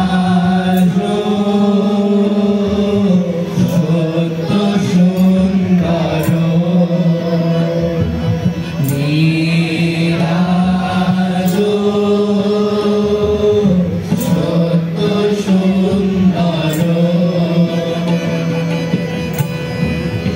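A group of boys singing a song in unison through microphones and a PA, holding long notes.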